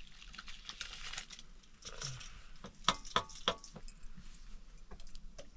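White grain slides off a steel plate into a large pot of steaming milky liquid over a wood fire, with a soft rustling hiss. About three seconds in comes a quick run of sharp metal taps as the plate knocks on the pot.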